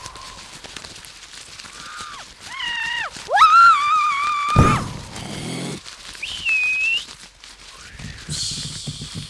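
High-pitched wailing cries that glide up and down, the longest sliding up and holding before it cuts off with a sudden low thump about halfway through. A shorter high cry follows, and then a burst of hiss near the end.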